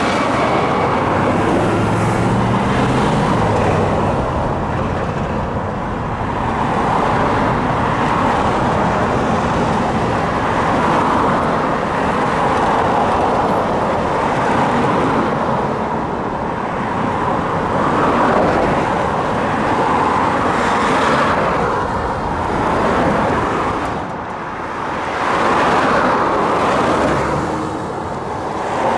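Steady road traffic, with cars swelling past one after another.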